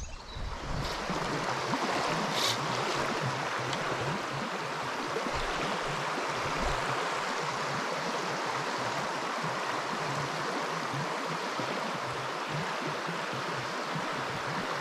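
Steady rush of a shallow river current rippling close by, an even wash of moving water.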